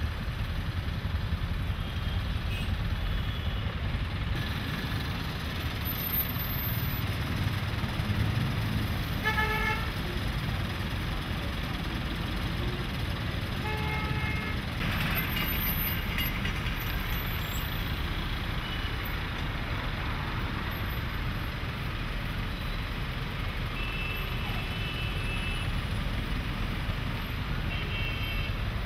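Heavy road traffic of trucks and motorbikes: a steady engine rumble, with vehicle horns tooting briefly about 9 and 14 seconds in and a few fainter toots near the end.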